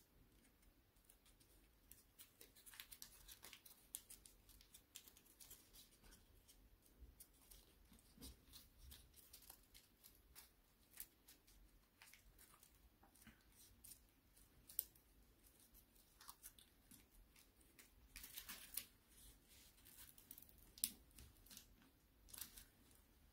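Faint rustling and crinkling of a sheet of paper being handled and creased while folding an origami model, with scattered sharp crackles and a longer rustle about three quarters of the way through.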